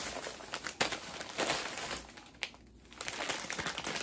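Plastic snack packaging crinkling and rustling as it is handled and rummaged through, with a short lull about two and a half seconds in.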